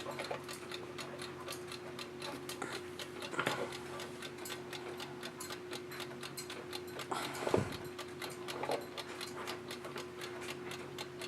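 Mechanical wind-up West German Bradley alarm clock ticking in a rapid, even rhythm. A single knock about seven and a half seconds in.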